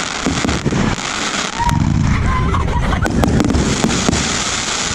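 Rampage, a 49-shot 1.3G firework cake, firing: a rapid run of sharp bangs and crackles over a continuous rumble.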